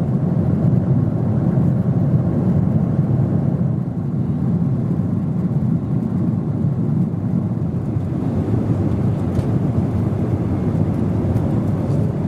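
Steady low rumble and rush of a Boeing 777 cabin in cruise flight: engine and airflow noise heard from inside the cabin.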